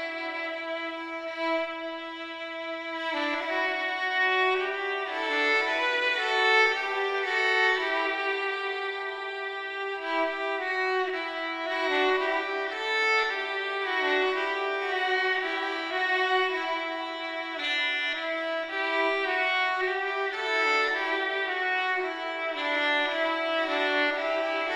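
Background music: a solo violin playing a melody of long notes.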